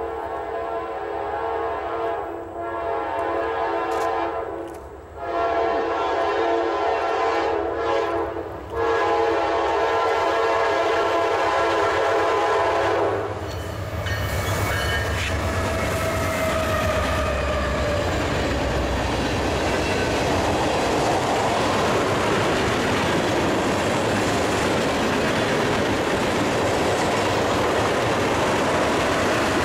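A train's locomotive air horn sounding four blasts, the last held for about five seconds. Then the train rolls past with a deep rumble from the locomotives and the steady noise of wheels on rails.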